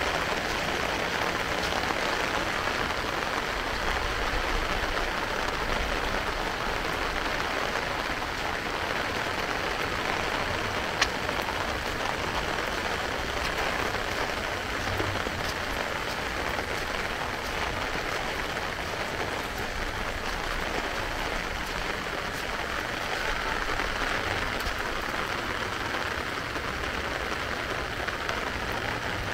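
Heavy rain falling steadily, with a single sharp tick about eleven seconds in.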